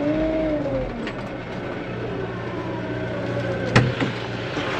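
Kioti tractor's diesel engine running steadily, heard from inside the closed cab. About three and three-quarter seconds in there is a single sharp click as the cab door latch is worked.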